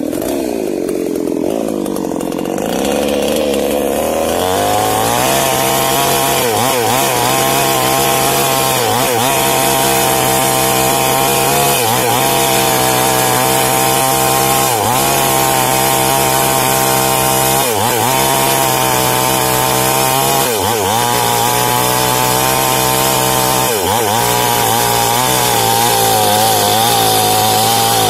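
Small New Paxton two-stroke chainsaw revving up, then running at full throttle as it cuts into a tree trunk. Its engine note dips briefly about every three seconds as the chain loads in the wood.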